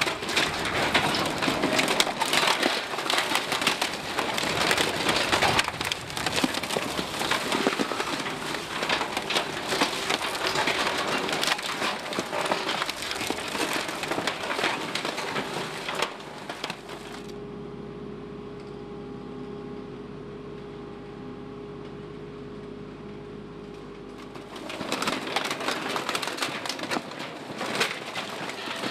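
Spiked compression roller of a Bergmann RPM 7700 roll-packer crushing loose bagged garbage in an open container: dense crackling and snapping of plastic and waste under the roller. For several seconds past the middle the crackling stops, leaving a steady machine hum, then the crushing resumes near the end.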